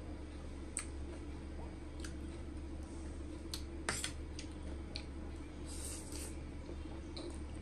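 Close-up eating sounds of a person chewing spicy noodles: scattered sharp, wet mouth clicks and smacks over a steady low hum, with a short hissy patch about six seconds in.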